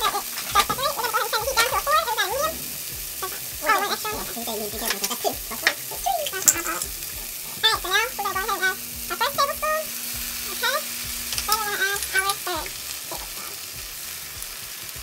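Diced onion, bell pepper and tomato sizzling in a nonstick frying pan, with a steady hiss of frying. Liquid plant-based JUST Egg is added and spread around the pan with a spoon as it keeps sizzling.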